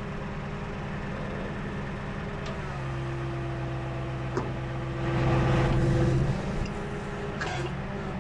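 Tow truck engine idling, then speeding up to a higher steady pitch while the hydraulics lower the towed car, and dropping back near the end. A single sharp click sounds in the middle.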